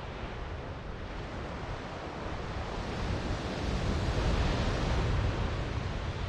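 Ocean surf washing onto the beach, swelling louder about halfway through as a wave comes in, then easing. Wind rumbles on the microphone underneath.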